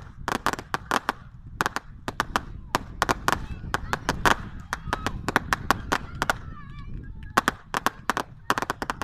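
Firework display going off: rapid sharp bangs and crackles, several a second in clusters, over a low rumble.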